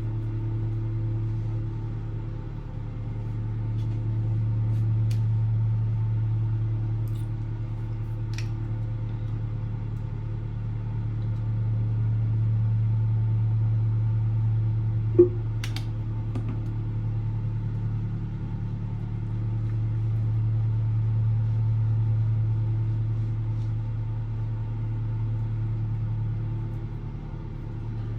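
A steady low hum, rising and falling slowly in loudness, with a few faint ticks and one sharp click about halfway through.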